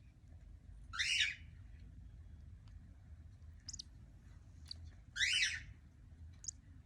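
Cockatiel calling: two harsh, raspy squawks about four seconds apart, the first about a second in, with a few short high chirps between them.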